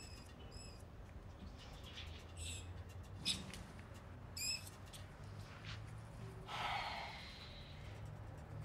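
A caged rat squeaking: about five short, high chirps spread over the first half, the loudest about a third of the way in, over a low steady hum. A soft breathy rush of noise comes about three-quarters of the way through.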